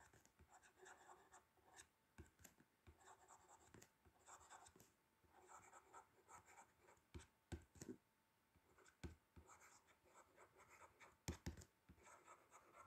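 Faint scratching of a pen writing on paper, in short strokes with a few sharp ticks as the pen meets the page.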